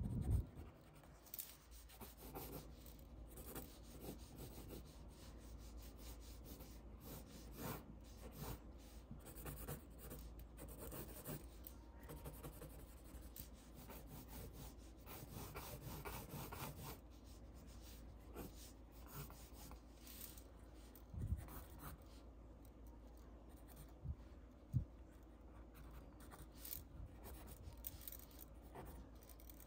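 Pencil sketching on paper: faint, continual scratching strokes of varying length. A few low thumps stand out above it, the loudest right at the start and two more near the three-quarter mark.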